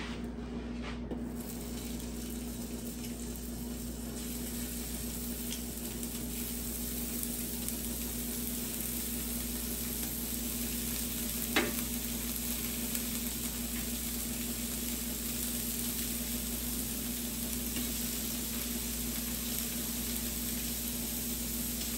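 Sirloin steak strips sizzling steadily on a hot, oiled Blackstone electric griddle, growing slightly louder, with a steady low hum underneath. A single sharp click comes about halfway through.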